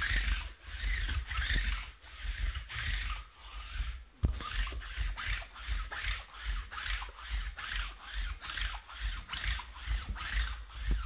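Steady back-and-forth rubbing or scraping strokes, about two a second at first and then about three a second, with dull low thumps underneath.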